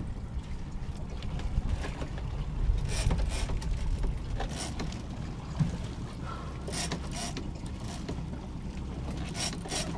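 Steady low rumble of a boat at sea, with wind on the microphone and a few short bright splash-like noises scattered through.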